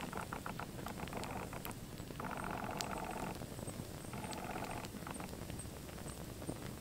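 Small fire burning in the interiors of toy model cars, a soft steady rush with scattered sharp crackles. A rapid chirping trill, each burst about a second long, comes and goes three times.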